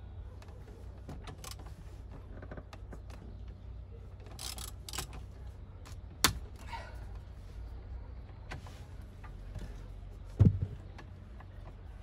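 Hands and a screwdriver working in the hub of a Mercedes W210 steering wheel: scattered small clicks and taps, a sharp click about six seconds in and a dull thump near the end.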